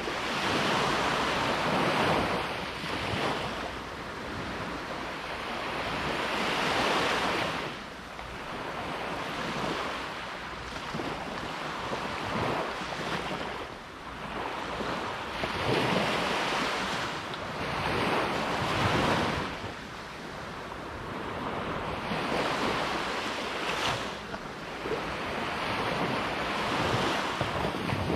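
Caribbean Sea surf: waves breaking and washing ashore, the rush swelling and ebbing again every few seconds.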